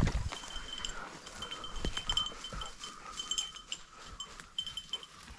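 A bird dog's collar bell jingling on and off as the dog works through cover, ringing high with a fainter lower tone beneath, over scattered crackles of brush.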